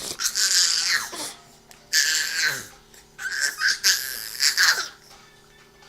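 A baby making a weird, breathy squealing noise, three times, each squeal sliding down in pitch.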